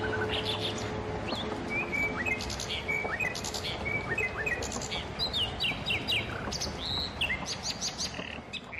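Small songbirds chirping: many short whistled notes, some sliding down in pitch, come thick and fast over a light background hiss.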